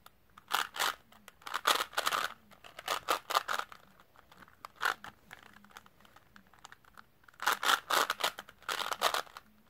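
Plastic Rubik's Cube being twisted by hand in quick bursts of turns, each layer turn a short rasping click, with pauses between the bursts.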